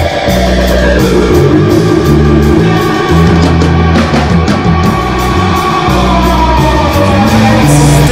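Loud heavy rock music led by distorted electric guitar over bass, with a guitar line gliding down in pitch over the first couple of seconds.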